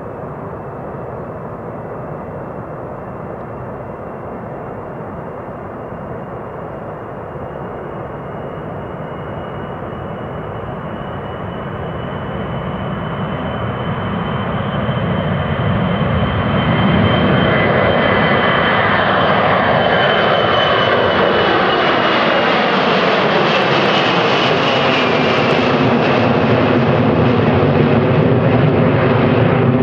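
Xian Y-20A Kunpeng's four turbofan engines running with a steady high whine over a heavy rush of noise. The sound grows louder over several seconds around the middle and then holds loud, with a shifting, sweeping quality as the jet comes closer.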